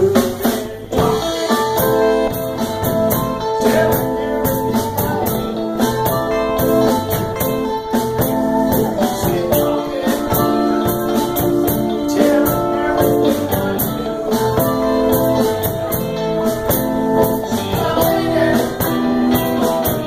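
Live blues band playing with a steady beat: electric guitars and a drum kit, with a harmonica played through a microphone.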